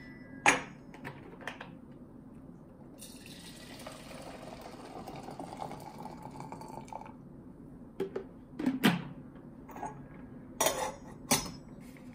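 Water poured from an electric kettle into a stainless steel gooseneck drip kettle for about four seconds, with a faint tone that rises as the kettle fills. Before and after it come knocks and clinks of kettles and lids being set down on the tray.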